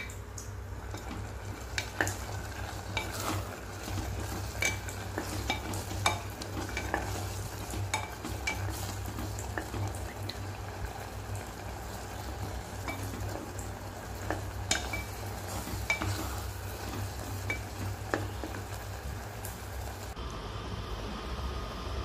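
Wooden spatula stirring a thick mash of jackfruit and coconut paste in a pressure cooker pot, with scattered taps and scrapes against the pot, over a steady low hum.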